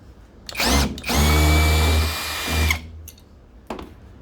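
Handheld power drill-driver spinning up and running for about two seconds, then winding down, backing out a screw. Its pitch rises as it starts, holds steady, then drops as it stops.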